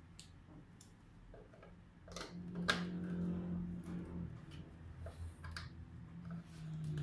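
Light plastic clicks and ticks from modular power supply cables and their connectors being handled and plugged in. The clicks are scattered and grow louder about two seconds in.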